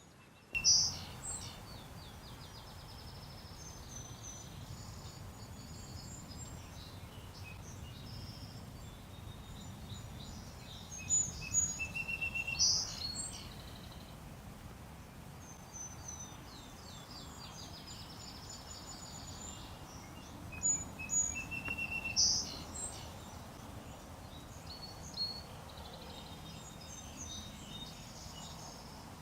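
Wild birds singing and chirping: short trilled songs and sharp chirps that recur throughout, over steady low background noise.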